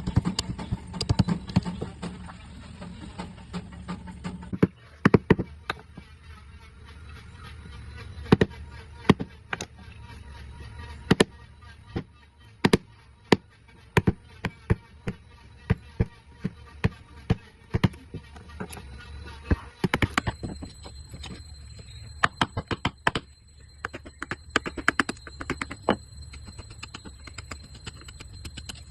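Carving chisel struck with a mallet in a series of sharp, irregular knocks, some in quick clusters. A faint steady high tone joins about two-thirds of the way in.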